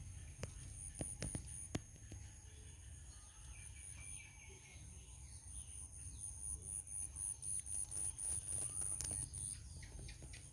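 Faint outdoor ambience: a high-pitched chirp pulsing evenly about four times a second, growing stronger in the second half, over a low rumble. A few sharp clicks come near the start.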